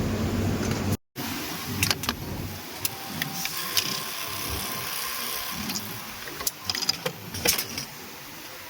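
Garment-factory sewing machine: a steady motor hum for about the first second, then, after a brief cut, a quieter stretch with scattered sharp clicks and light knocks.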